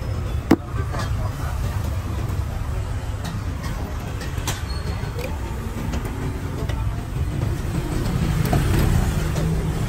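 Steady low rumble of road traffic, with a single sharp knock about half a second in.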